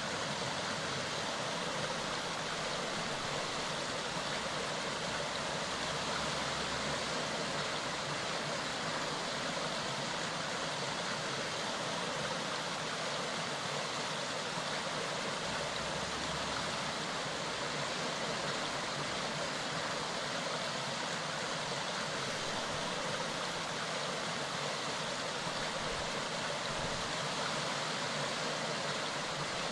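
Clear mountain stream running, a steady, unbroken rush of water.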